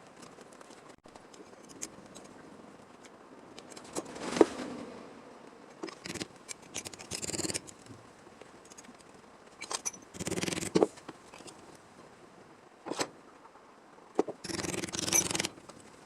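Hand tools working on the car's steel body panels: short, irregular bursts of snipping and scraping, with sharp clicks between them.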